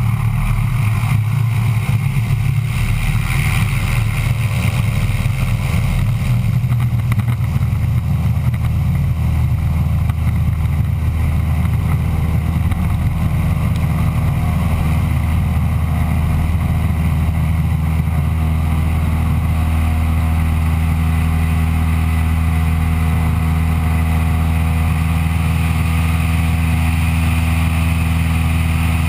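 Piston engine and propeller of a single-engine Cessna running at high power during the takeoff roll, a steady drone whose tone firms up and steadies about seven seconds in.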